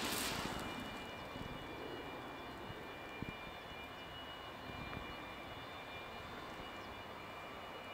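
Distant jet aircraft engines: a steady faint rumble with a thin high whine, after a louder rush that fades away within the first second.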